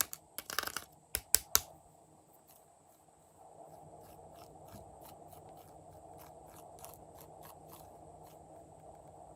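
Slime being handled and mixed by hand: a cluster of sharp crackles and clicks in the first two seconds, then faint, irregular small clicks over a steady low hiss.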